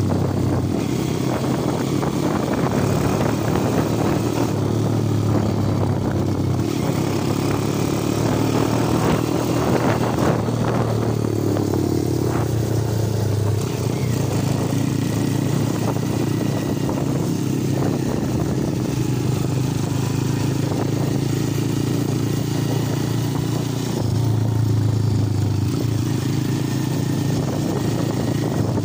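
Small underbone motorcycle engine running steadily under way, its note shifting up and down with the throttle and getting louder about three quarters of the way through.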